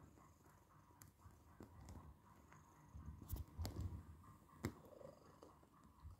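A domestic cat purring faintly as she kneads a soft blanket, with a few soft clicks in the middle.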